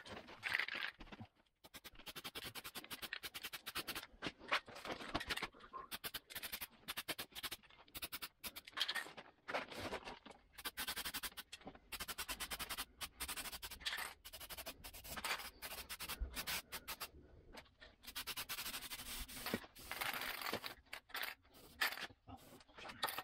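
Short scraping and rubbing strokes on bare steel sheet metal, mixed with hissing from an aerosol can of weld-through primer being sprayed onto the cleaned weld areas.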